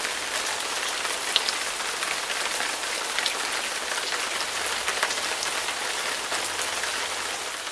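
Steady rain falling on wet pavement, with scattered sharp drops ticking close by.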